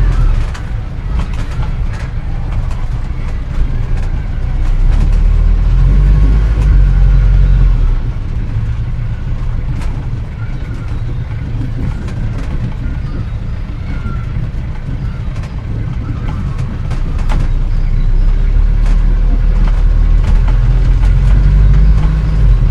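Antique car from around 1940 driving, its engine running with a low rumble that swells twice as the load rises and eases in between, with scattered clicks and rattles.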